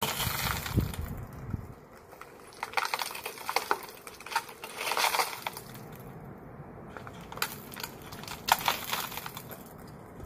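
Shattered glass clinking and crunching as the shards on a tiled step are worked with a metal bar, in a run of irregular sharp clicks and scrapes.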